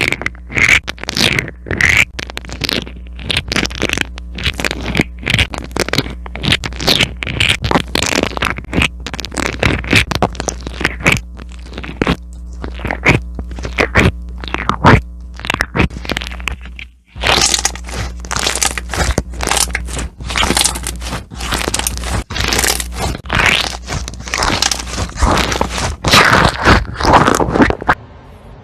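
Slime being squeezed, poked and pressed, giving dense runs of crackles and pops, with a short break about halfway through.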